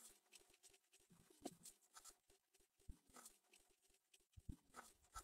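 Near silence, with faint, irregular clicks and ticks.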